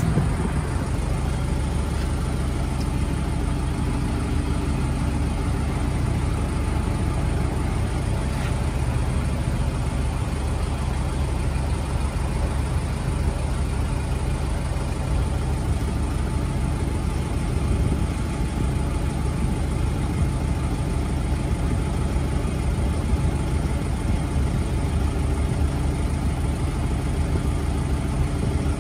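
A diesel truck engine idling steadily, a constant low hum with no change in pace.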